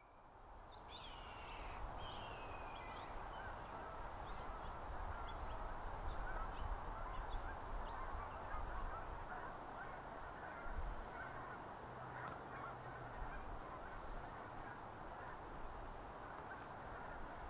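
A flock of geese honking, many short calls overlapping over a steady background rumble, fading in over the first couple of seconds.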